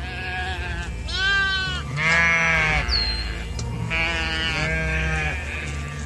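Sheep bleating, a series of wavering calls, the loudest about two seconds in.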